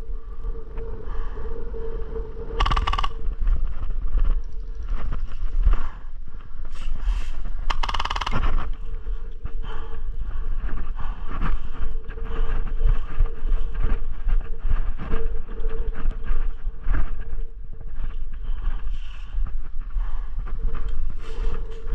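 Wind buffeting the microphone as a low rumble, with irregular small knocks and rustles from movement and gear. There are two brief louder noises, about 3 and 8 seconds in.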